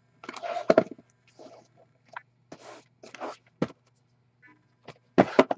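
Sealed hobby card boxes being handled on a table: irregular scraping and rustling with a few sharp knocks, the loudest cluster near the end.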